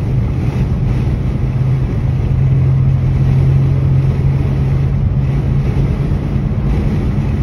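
Car driving at steady speed, heard from inside the cabin: a steady low engine hum with road and tyre rumble.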